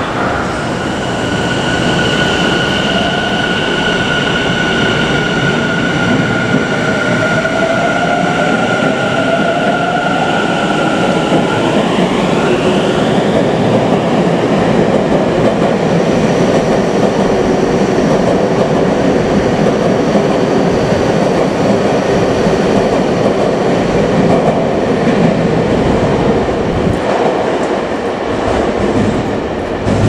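Tobu 50070-series electric train pulling out of an underground station and accelerating into the tunnel: a steady high motor whine, then tones rising in pitch about seven to thirteen seconds in as it gathers speed, under the growing rumble of the wheels on the rails.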